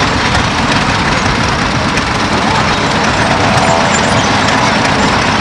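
Vintage John Deere tractor's two-cylinder engine running steadily as the tractor drives slowly past.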